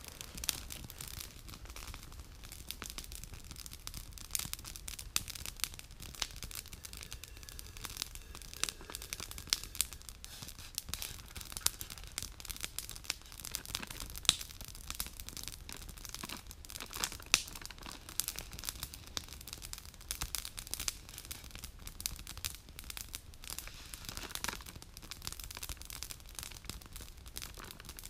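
Wood campfire crackling, with many irregular sharp snaps.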